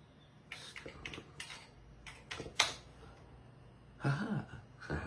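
Keys being pressed on an Amiga A1200 keyboard: a run of separate key clicks as a Shell command is typed, ending with one louder key strike about two and a half seconds in.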